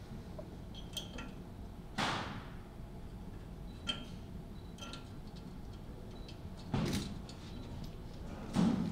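Scattered metal clicks and knocks as a hex-head leveling bolt and its brass base plate are handled and fitted onto a pool-table frame. The louder knocks come about two seconds in, near seven seconds and near the end.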